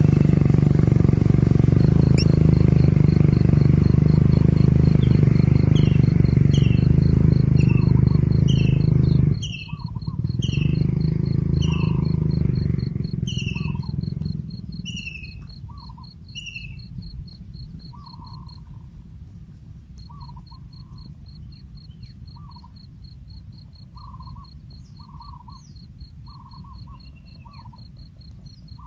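A loud low rumbling drone that cuts off sharply about nine seconds in and fades away by the middle. Birds call over it: short descending chirps, then repeated short double calls, with a steady high insect-like pulsing throughout.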